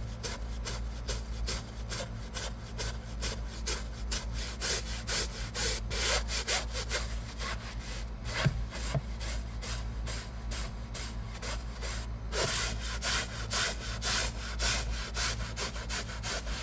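Stiff hand brush scrubbing a fabric car seat in quick, even back-and-forth strokes, a few a second, over a steady low hum.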